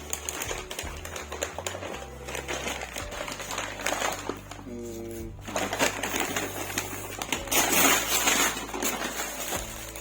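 Rapid clicking and rustling of plastic phone cases and their packaging being handled, loudest about three-quarters of the way through, over background music.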